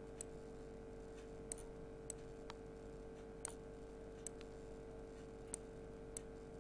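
Light clicks, about eight at irregular intervals, from the computer input used to draw letters on screen, over a steady faint hum.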